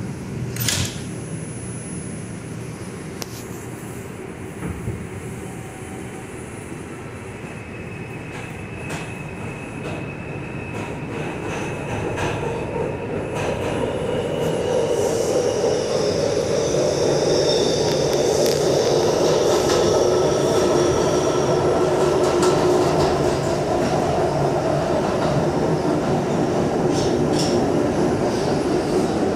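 R142 subway car's doors shut with a sharp thud about a second in. The train then pulls out of the station, with an electric whine from the motors as it speeds up and the wheel and track noise growing louder, then running steadily.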